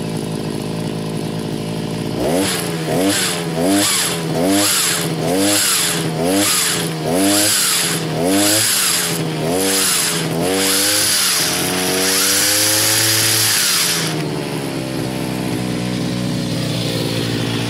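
Two-stroke engine of a Siga Tools multi-tool brushcutter driving its hedge-trimmer attachment: idling, then revved about a dozen times in quick succession. It is held at higher revs for a couple of seconds, then drops back to idle.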